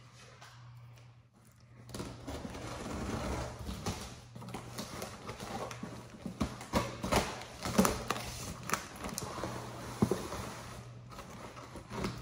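A cardboard shipping box being opened and unpacked by hand: after about two seconds of quiet, continuous rustling of cardboard and plastic packing with frequent sharp crackles and taps, over a steady low hum.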